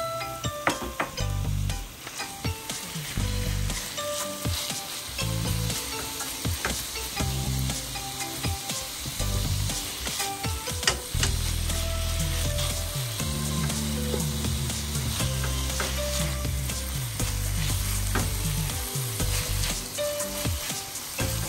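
Minced garlic sizzling in melted butter in a stainless steel pan, stirred and scraped with a silicone spatula, with a steady hiss and many small ticks and scrapes.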